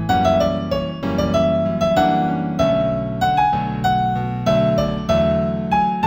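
New-age instrumental music in A major on a piano-like keyboard: a melody of single notes, two or three a second, over sustained low chords.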